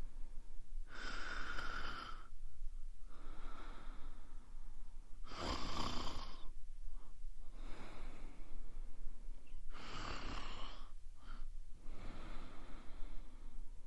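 A woman snoring steadily: three loud snores about four seconds apart, with a softer breath between each.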